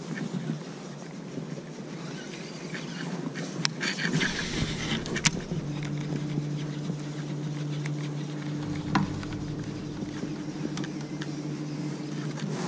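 A few sharp clicks and a brief whirring hiss from a baitcasting reel being cast and reeled. From about six seconds in comes a steady low hum, as from the boat's electric trolling motor running.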